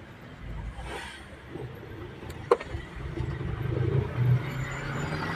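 A low rumble of a vehicle, strongest in the second half, with one sharp click about two and a half seconds in.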